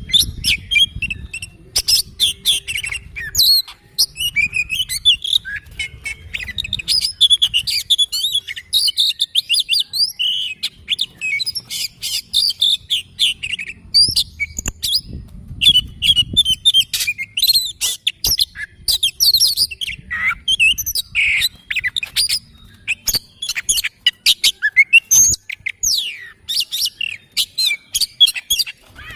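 Oriental magpie-robin singing a long, varied run of rapid whistles, chirps and sharp notes, with only brief pauses.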